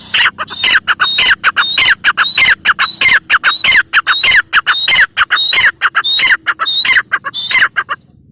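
Grey francolin (teetar) calling: a loud, rapid run of harsh, squawky notes, each dropping in pitch, about four a second, that stops abruptly after about eight seconds.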